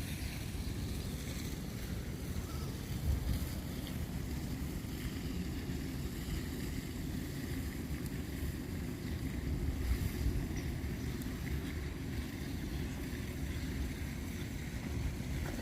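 Wind buffeting the microphone: a steady low rumble that swells and eases.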